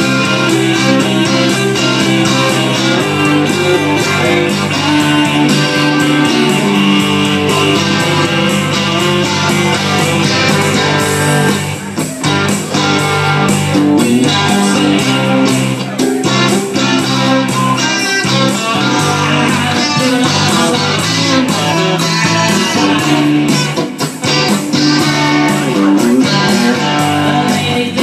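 Live music with a strummed guitar sound and a Yamaha keyboard, a man singing into a microphone over it. The music dips briefly twice, near the middle and near the end.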